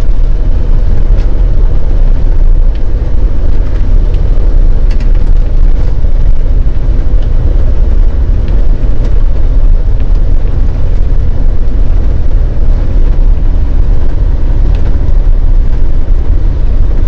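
Bus engine and tyre noise heard from inside the cabin at the front while driving: a loud, steady low rumble with occasional light clicks and rattles.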